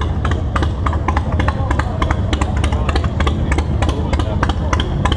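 Busy street ambience: crowd chatter over a steady low rumble, with a fast, irregular stream of sharp clicks and taps.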